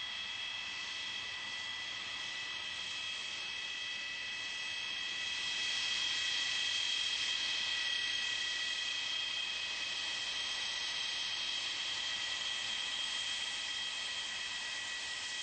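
Military jet engine running with a steady rushing hiss and a high-pitched whine, growing louder about five seconds in.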